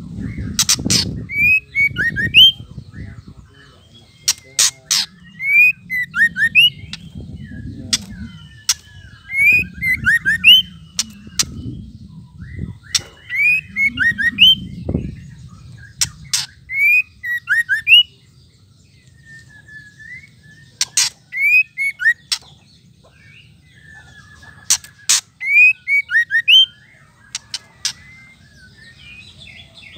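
White-rumped shama calling in short bouts: sharp dry clicks, often two or three together, the 'ketrekan' call, mixed with brief high whistled notes that slide down. A low rumble lies under the first half.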